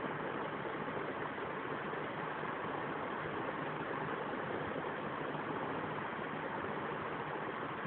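Steady rushing noise with a faint low hum, unchanging throughout.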